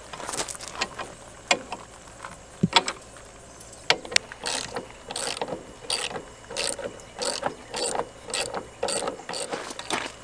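Socket ratchet wrench clicking as it turns out the bolts holding a metal plate on a garden tractor. A few separate sharp clicks and knocks come first, then from about four seconds in a steady run of ratcheting strokes, roughly two to three a second.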